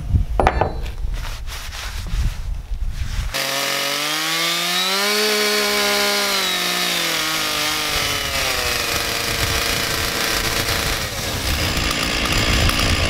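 Stihl MS 460 two-stroke chainsaw running with its 36-inch bar and ripping chain, engine speed climbing, easing back down and holding. Before the saw comes in, about 3 s in, there are a few seconds of low rumbling noise with clicks.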